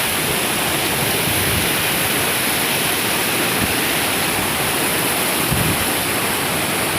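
Floodwater rushing, a steady loud noise with no breaks.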